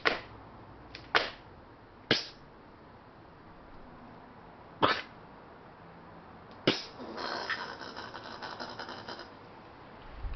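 Angry Australian possum giving short, sudden coughing hisses, five of them one to two and a half seconds apart. Then, about seven seconds in, comes a rapid rattling chatter of about two seconds.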